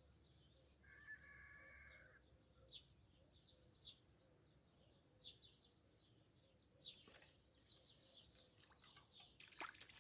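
Near silence with faint, scattered bird chirps, short high notes sweeping downward every second or so. A short steady tone sounds about a second in, and a brief cluster of clicks and rustling comes near the end.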